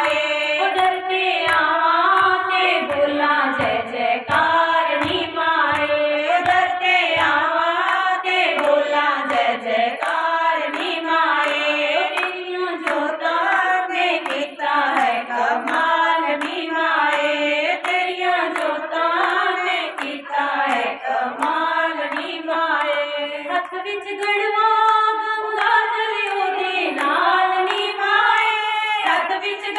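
A group of women singing a Punjabi devotional bhajan to the Mother Goddess together, with steady rhythmic hand-clapping keeping time.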